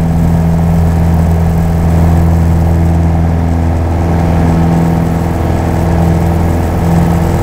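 Piper Warrior's four-cylinder Lycoming engine and propeller at full takeoff power during the takeoff roll, running steadily as heard from inside the cockpit.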